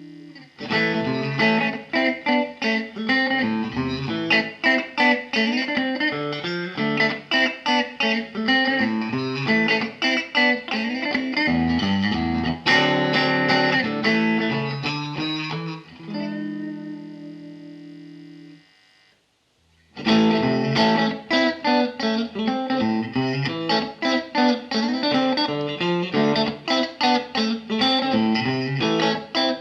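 Ibanez AZES31 electric guitar played through a Mesa Boogie Express 5:25 amp: fast picked single-note lines, then a chord left ringing for a couple of seconds that is cut off. After about a second of silence the fast playing starts again.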